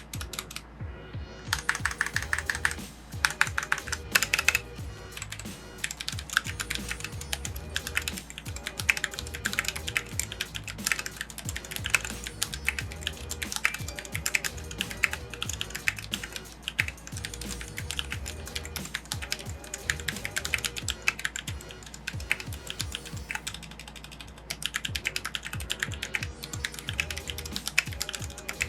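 Typing on a Royal Kludge RK100 mechanical keyboard fitted with Gateron Brown switches: a rapid, continuous stream of keystroke clacks.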